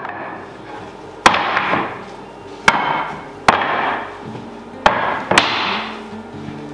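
Oak, ash and maple blanks being stacked by hand: five sharp wooden knocks, the last two close together, each followed by a brief clatter as the pieces settle on the pile.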